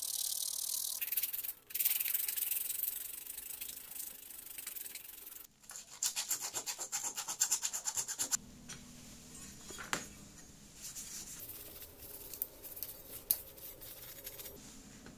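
Small pressed-steel toy parts being rubbed by hand: a steady scratchy rubbing, then quick back-and-forth strokes, about five a second, for a few seconds. Softer cloth wiping follows, with a few light clicks of the metal parts.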